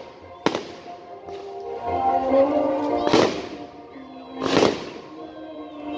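Aerial fireworks bursting overhead: a sharp bang about half a second in, then two louder bursts about three and four and a half seconds in, each trailing off.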